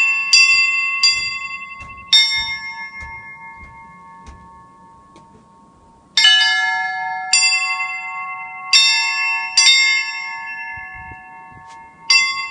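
Church bells rung by hand, several bells of different pitch struck one at a time, each stroke ringing on and slowly dying away. A quick run of strokes is followed by a pause of about four seconds, then another run and a single stroke near the end.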